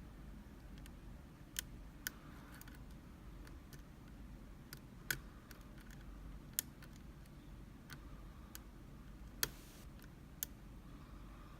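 Picking a Union rim cylinder pin-tumbler lock: a dozen or so short, sharp metallic clicks from the hook pick and tension wrench working the pins, spaced irregularly, with a few louder than the rest. A faint low hum runs underneath.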